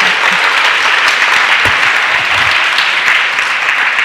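Audience applauding steadily with many hands clapping.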